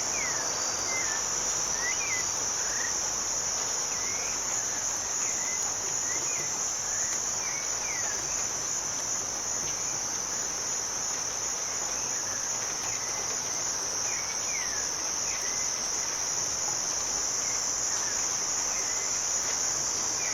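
A steady, high insect chorus of crickets, with short bird chirps scattered through it, over an even hiss of rain.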